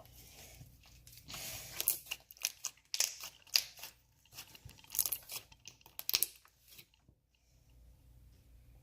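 Store-bought slime being squeezed, stretched and pulled apart by hand, making an irregular run of crackling and ripping noises that dies away about seven seconds in.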